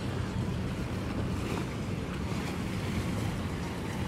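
Steady rumble of wind buffeting the microphone, mixed with water noise from a boat on open water.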